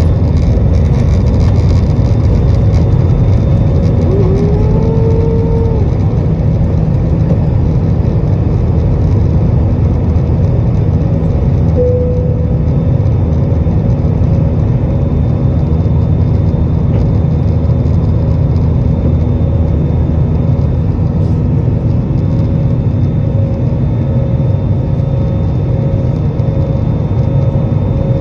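Jet airliner cabin noise during takeoff and initial climb: the underwing engines running steadily at high thrust, a loud, even roar heard from a window seat over the wing. A short rising whine sounds about four seconds in, and the roar eases slightly after that.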